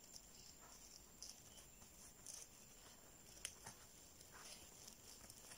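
Near silence, with faint soft rustles and small ticks of yarn being worked on a crochet hook, and one sharper click about three and a half seconds in.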